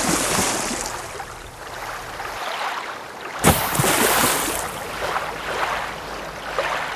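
Waves breaking and washing in, in two surges: one already fading at the start, a second about three and a half seconds in that then slowly dies away.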